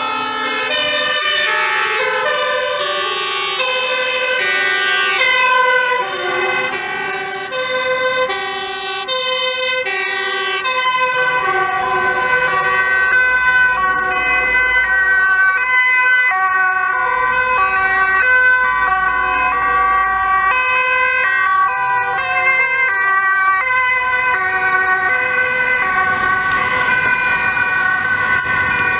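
Sirens of several Dutch emergency vehicles (fire engines, a police truck and an ambulance) sounding together as they pass, overlapping two-tone patterns stepping between pitches, with fast rising and falling sweeps in the first ten seconds. Heavy vehicle engines run underneath.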